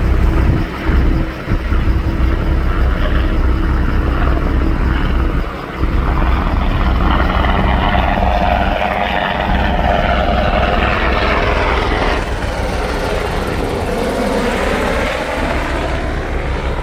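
US Coast Guard MH-60 Jayhawk helicopter flying low overhead. Its rotors make a steady low beat, and its engine whine slides down and back up in pitch as it passes.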